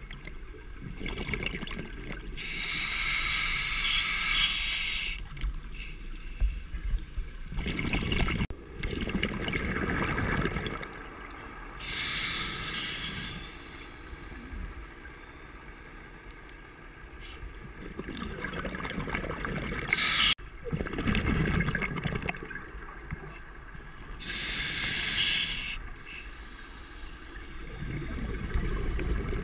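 Diver's scuba regulator breathing underwater: three slow breaths about ten seconds apart, each a hissing inhale through the demand valve followed by a burst of exhaled bubbles.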